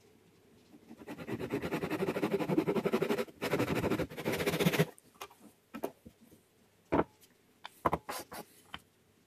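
Hand saw cutting through a wooden strip in a wooden miter box, with rapid back-and-forth strokes, a brief pause partway, and the cut finishing about five seconds in. Afterwards there are a few sharp knocks as the cut wooden pieces are set down and moved on the bench.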